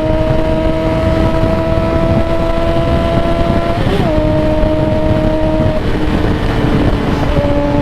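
Yamaha XJ6 inline-four motorcycle engine running at steady high revs while riding, under heavy wind rush on the microphone. The engine note climbs slowly, changes briefly about four seconds in, then holds steady.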